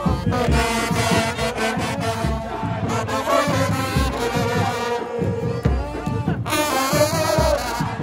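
Football supporters' band of trombones and trumpets playing a chant tune over regular beats of bass drums (bombos). A short burst of hissing noise cuts in about six and a half seconds in.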